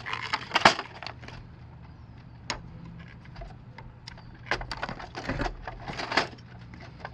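Rubber tire being stretched by hand over the plastic wheel of a Polaris 3900 Sport pool cleaner: irregular rubbing, creaks and knocks, with a few sharper clicks.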